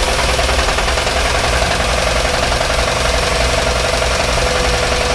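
Chevrolet 350 V8 in a 1987 Grumman Kurbmaster step van running with a big time knock, a fast hammering that sounds like a jackhammer. The knock points to worn rod bearings, and the owner fears it could throw a rod soon.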